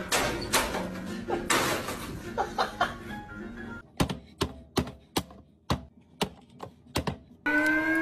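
A toddler slams the lid of a plastic vegetable chopper down again and again, about nine sharp chops in three seconds. Before it comes a noisy classroom stretch with a couple of loud knocks, and music starts near the end.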